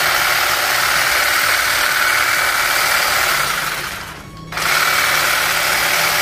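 Makita DUM604 18V cordless grass shear fitted with the hedge-trimmer blade, running unloaded with the steady buzz of its motor and reciprocating blade; it stops for about half a second about four seconds in, then starts again.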